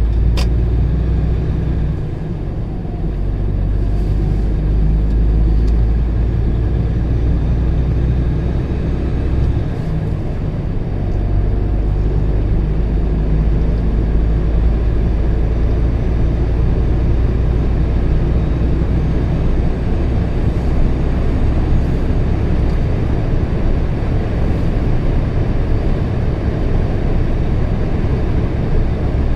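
Vehicle driving at steady road speed: a continuous low rumble of engine and tyre noise.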